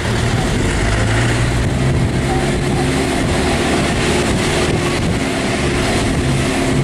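An engine running steadily with a low droning hum that dips briefly and comes back, over a rushing background noise.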